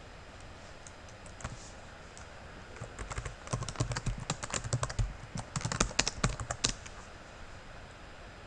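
Typing on a computer keyboard: a few scattered keystrokes, then a quick run of typing from about three seconds in until nearly seven seconds, then a pause.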